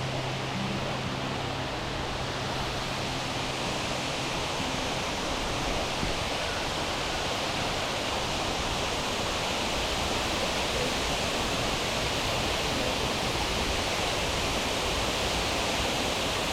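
Steady rush of falling and flowing water from a rainforest creek and waterfall. A low steady hum fades out in the first few seconds.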